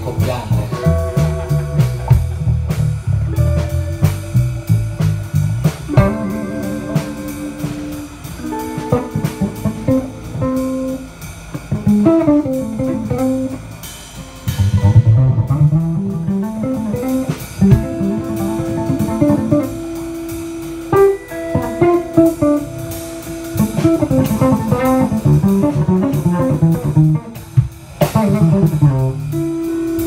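Live band playing: electric guitar with long held notes over electric bass and a drum kit.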